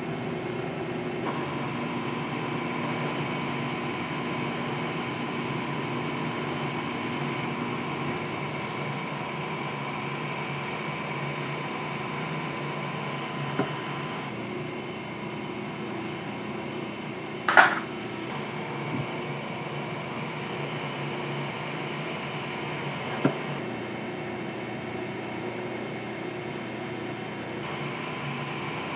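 Milling machine running steadily while drilling spoke holes in a bronze bicycle hub flange, a steady mechanical hum whose tone shifts abruptly a few times. One sharp click about two-thirds through, with a couple of lighter ticks either side.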